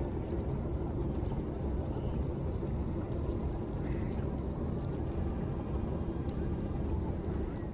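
Outdoor ambience: a steady low rumble with faint, scattered high chirps.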